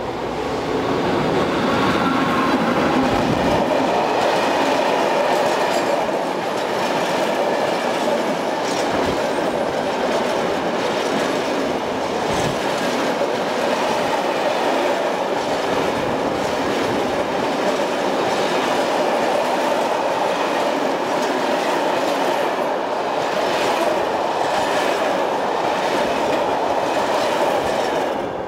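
An Italian electric locomotive passes, followed by a long freight train of empty stanchion flat wagons. The sound builds over the first couple of seconds as the locomotive arrives, then holds as a steady loud rumble and clatter of wagon wheels on the rails. It drops away suddenly at the end as the last wagon clears.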